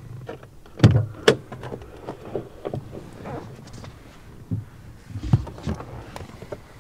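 Knocks and rustling from moving around in a car's back seat and rear door opening: two sharp knocks about a second in, then scattered softer knocks and another thump around five seconds in.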